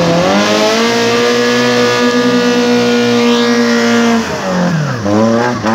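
Off-road 4x4's engine revved hard and held at high revs for about four seconds as it pulls the vehicle up out of a muddy rut. The revs then drop, and rise again briefly near the end.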